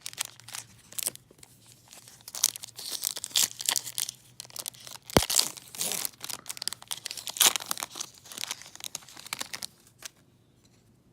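Foil trading-card pack wrapper being torn open and crinkled, the crackling going on in irregular bursts, with one sharp tap about halfway through. It stops about ten seconds in.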